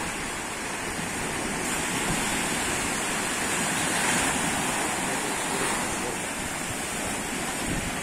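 Sea surf washing steadily, with wind blowing on the microphone; the rush swells a little about halfway through.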